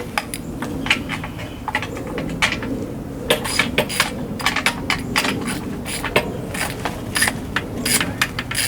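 Hand tools working at a screw in a car dashboard: irregular light metallic clicks and ticks, some in quick runs, as the fastener is turned out and parts are handled.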